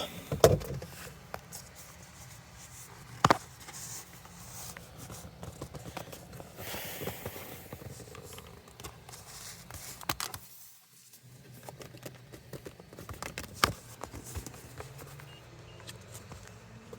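Cardboard product box being handled and turned over: faint rubbing and a longer scrape of cardboard, with a few sharp knocks as it is gripped and set down.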